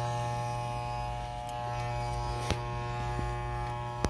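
Corded electric hair clippers buzzing steadily while run over a man's scalp, with a short click about two and a half seconds in and another near the end.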